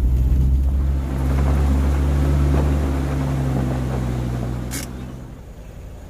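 Off-road vehicle's engine running low and steady while driving slowly up a rough, narrow track, with road noise over it. There is a short sharp click near the end, and the sound fades away.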